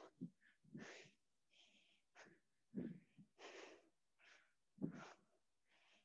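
A person breathing hard and fast from strenuous exercise: short, sharp breaths in and out, about one every two-thirds of a second, some with a low voiced edge, all fairly faint.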